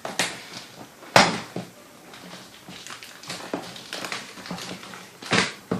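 A cardboard shipping box being opened by hand: scattered scrapes, rustles and knocks of cardboard and packing tape, with two louder sharp scraping hits, about a second in and near the end.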